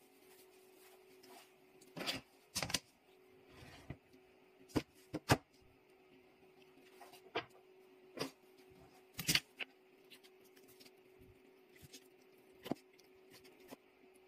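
Scattered clicks and knocks of kitchen utensils against an enamel saucepan and a plastic cutting board as braised meat is lifted out and sliced with a knife, over a steady low hum.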